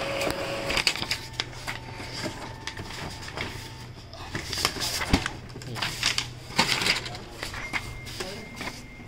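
Epson EcoTank L3250 inkjet printer at work: motors whirring over a low hum, with an irregular run of clicks and knocks from the mechanism and the paper being handled.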